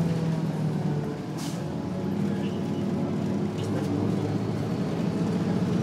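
Engine of a 1996–97 MCI Novabus Classic transit bus under way, heard from inside the bus: a steady drone that dips about a second in and then builds again as the bus pulls. A short hiss of air cuts in briefly partway through.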